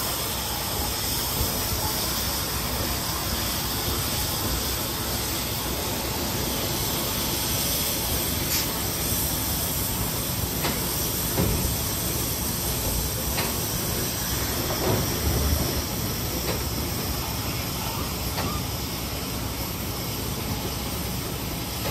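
Western Maryland 1309, a 2-6-6-2 articulated steam locomotive, hissing steam steadily as it creeps forward with its tender and coach, with a few scattered knocks and clanks.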